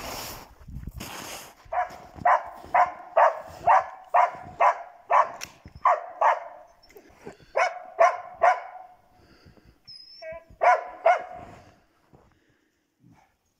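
Hunting huskies barking at game: after a rustling noise in the first second or so, a steady run of barks at about two a second, a short pause, then a few more barks and a brief higher cry before they stop near the end.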